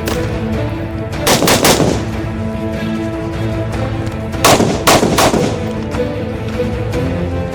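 Gunshots fired in quick bursts over background music: three rapid shots about a second in and three or four more about four and a half seconds in.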